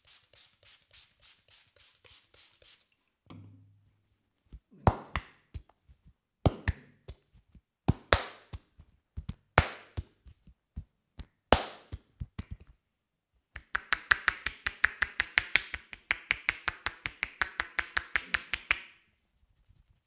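A masseur's hands striking the head and shoulders in percussive massage. First comes quick light tapping, about five strokes a second. Then loud slaps arrive every second and a half or so with lighter taps between, and near the end a fast flurry of about eight strokes a second.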